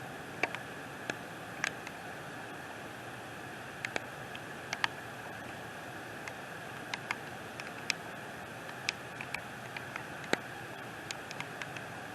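Steady rain hiss with irregular sharp ticks of raindrops striking, one or two a second.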